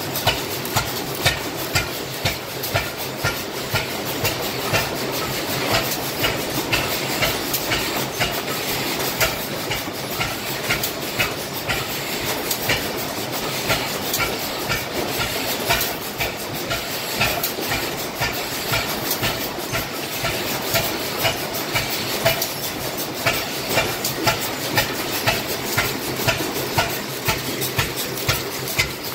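Several antique stationary gas engines running together, a steady rapid clatter of sharp clicks with louder knocks every second or two.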